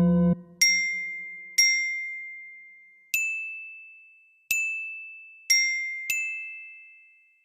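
Six bell-like struck notes at two alternating pitches, like a glockenspiel in background music. Each rings out and fades before the next, at uneven intervals.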